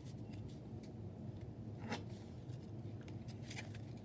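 Faint, light rustling and small clicks of Pokémon trading cards or their foil pack being handled, with one brief sharper rustle about two seconds in.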